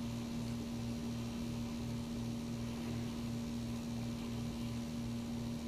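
Steady electrical hum with a low throb pulsing underneath, a few times a second.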